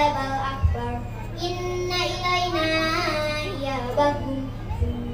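A girl chanting Qur'anic recitation (tartil) into a microphone over a PA system, in long held melodic phrases that glide between notes. Two brief low thumps are heard under the voice.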